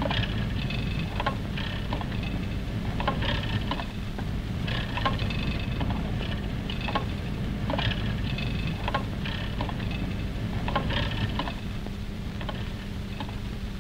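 Rotary printing press running: a rhythmic mechanical clatter about once a second over a steady low hum.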